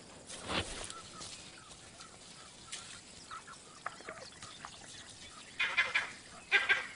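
Wild birds calling in the bush: faint scattered calls, then two short bursts of calls near the end.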